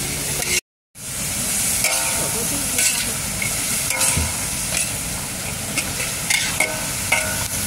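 Pounded tapioca leaves sizzling as they are stir-fried in a wok, with a metal spatula scraping and knocking against the pan as it turns them. The sound cuts out completely for a moment just under a second in.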